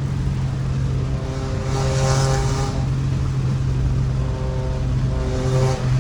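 Nissan 350Z's 3.5-litre V6 running steadily at a fast idle, with a higher rushing sound swelling briefly about two seconds in.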